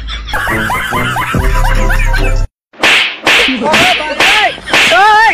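A rapid run of about seven sharp slapping hits in a scuffle, mixed with yelping cries near the end. They follow a couple of seconds of gliding, tone-like sound and a brief cut to silence.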